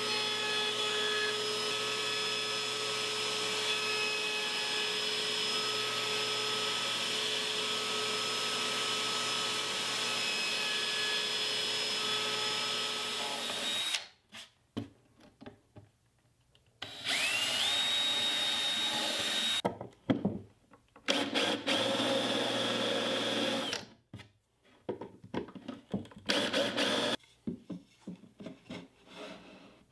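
A table saw runs steadily for about the first half, ripping plywood strips. After a break a cordless drill spins up with a rising whine and holds, twice for about two seconds each, driving screws into the plywood cabinet. Near the end come light knocks of plywood pieces being handled and fitted.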